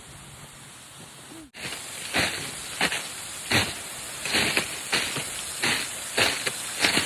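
Footsteps crunching through frozen snow and ice at a walking pace, about eight steps, over a steady hiss that is likely the nearby waterfall. A plain hiss alone fills the first second and a half.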